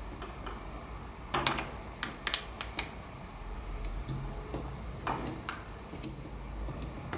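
Fingers handling a replacement battery and its ribbon cable in an opened iPod's metal back case: scattered small clicks and taps, a cluster about a second and a half in and another near five seconds, over a steady low hum.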